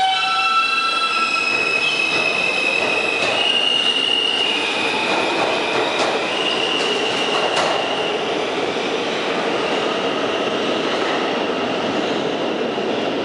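R160A subway train accelerating, its traction motors whining in pitch steps that climb over the first few seconds, over a steady rumble of wheels on the rails.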